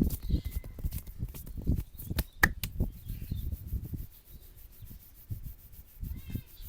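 Head massage: hands rubbing and patting a man's head and scalp in quick strokes, quieter and sparser from about four seconds in.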